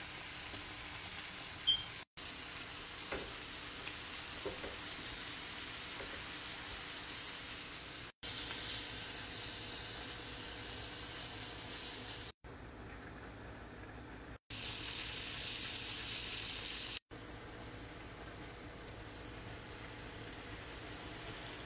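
Food sizzling and frying in a hot pan, a steady hiss, in short clips joined by abrupt cuts. The sound drops out briefly at each cut and is quieter for a couple of seconds just past the middle.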